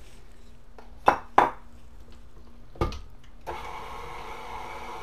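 A few sharp knocks, two close together about a second in and another near three seconds, then a KitchenAid stand mixer's motor switches on and runs steadily, mixing a thick cake batter.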